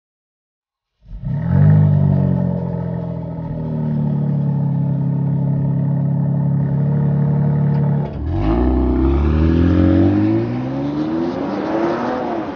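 BMW M S58 3.0-litre twin-turbo straight-six starting about a second in, flaring and settling to a steady idle. At about eight seconds it is revved, the pitch climbing for about three seconds before easing back.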